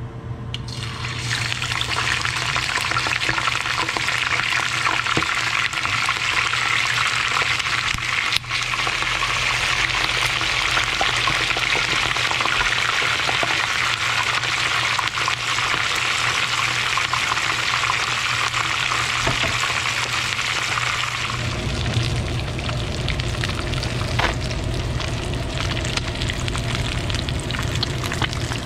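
Whole scored redfish deep-frying in hot oil in a pan: a loud, steady sizzle that starts about a second in as the fish goes into the oil. About three-quarters of the way through, the frying sound turns lower and rougher as the fish browns.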